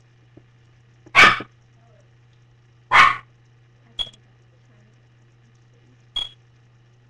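A dog barking: two loud barks about two seconds apart, then two shorter, sharper yips. A faint steady low hum runs underneath.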